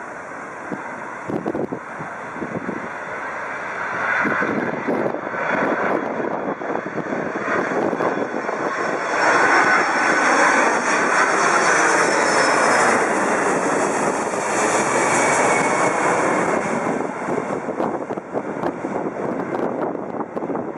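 Boeing 767 airliner on final approach passing low overhead: the jet engines' rush and whine build up, are loudest as it goes over, then fade as it flies away, with a high whine dropping in pitch after it passes.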